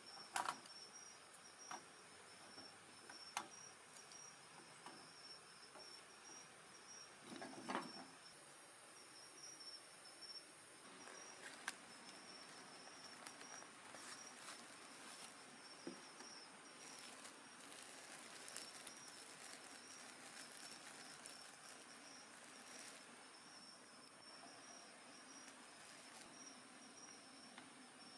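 Night insects chirping in a steady high pulsing trill, with scattered sharp crackles and pops from a wood fire burning in a small grill, one fuller pop about eight seconds in.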